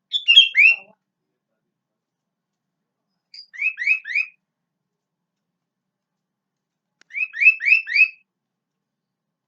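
Sooty-headed bulbul singing: three short phrases a few seconds apart, each a quick run of three or four rising whistled notes.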